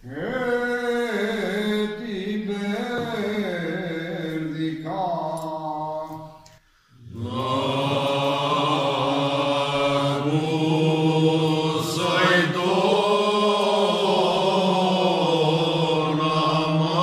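Unaccompanied male singing of a Cretan rizitiko song in slow, ornamented style, the melody gliding and bending between notes. About six and a half seconds in there is a brief pause, after which the singing resumes fuller, with several voices together in the call-and-response way of a rizitiko choir.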